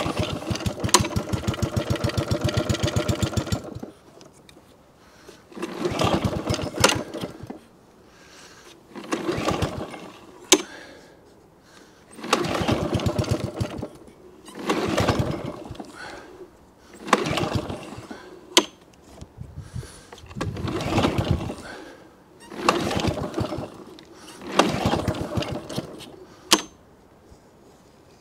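A McCulloch lawnmower's RV150 engine runs steadily for about four seconds, then surges over and over, revving up and dropping back roughly every two seconds instead of holding an even speed. The owner puts this hunting down to a missing governor linkage: nothing connects the air vane to the carburettor to regulate the speed.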